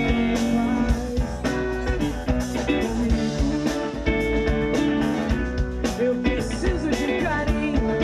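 Live pop-rock band playing: strummed acoustic guitar, electric guitar, electric bass and drum kit, with a lead singer's voice over them.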